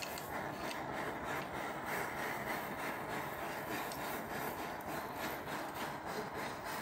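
Gas soldering torch burning with a steady hiss while its flame heats a gold bracelet joint for soldering.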